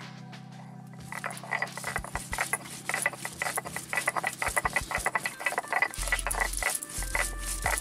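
Stone roller worked back and forth on a flat stone grinding slab (sil-nora), crushing whole spices, garlic and chillies into paste: a gritty scraping and crackling of stone on stone, starting about a second in.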